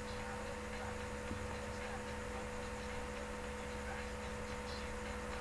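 Steady background hum and hiss from an open microphone, with a few faint ticks.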